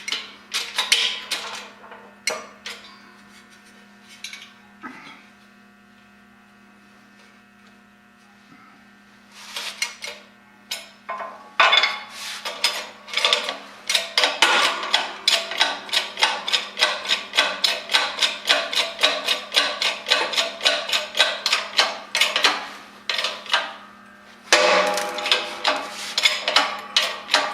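Keyway broach being forced through a hard gear blank, heard as a long run of sharp metallic clicks at about three a second under a steady machine hum. The broach is going through plenty hard.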